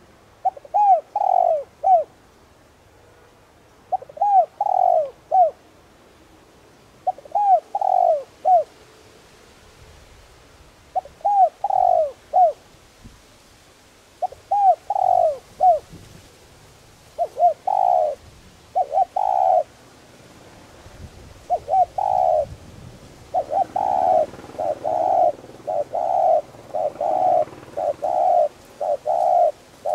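Spotted dove cooing: short phrases of three or four coos repeated every few seconds, then a quicker, almost unbroken run of coos near the end.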